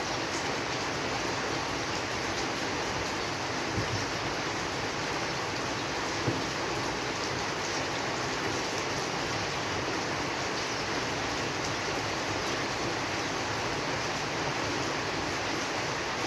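Steady, even rain falling, with two brief louder taps of drops a few seconds apart.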